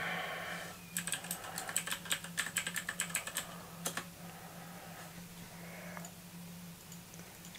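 Typing on a computer keyboard: a quick run of keystrokes lasting a couple of seconds, then one last key about four seconds in, over a low steady hum.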